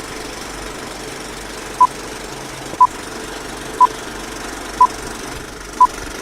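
Short electronic beeps of one pitch, one a second, five times, over a steady background hum.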